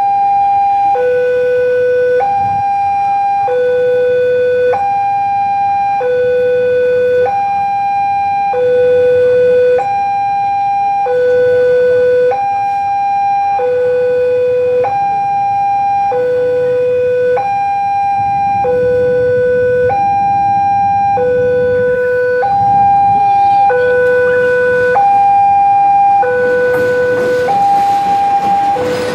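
Railway level-crossing warning alarm sounding a two-tone electronic signal, a high tone and a low tone alternating about once a second, the warning of an approaching train. Over the last few seconds the noise of the locomotive rises as it reaches the crossing.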